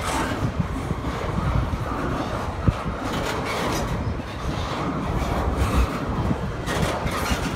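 Double-stack intermodal freight train passing close by: the steady running noise and rattle of well cars and their wheels on the rails, with one sharp knock about a third of the way through.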